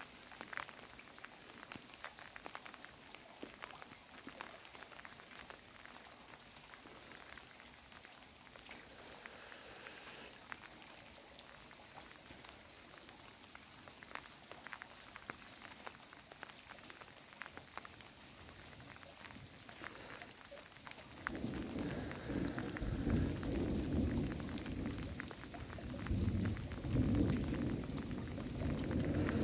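Rain falling steadily, with individual drops clicking close by. About two-thirds of the way through, a long, low rumble of thunder sets in suddenly and rolls on, louder than the rain.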